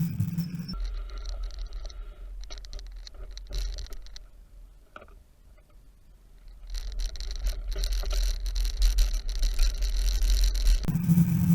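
Bicycle being ridden: wind rumbling on the microphone with light ticks and rattles. It dies down in the middle and picks up again after about seven seconds.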